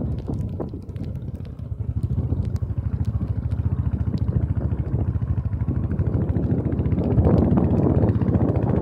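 Royal Enfield Bullet 500's single-cylinder engine running at a steady, even pulse on a rough mountain road, heard from the moving bike, with scattered clicks and rattles. It grows louder about seven seconds in.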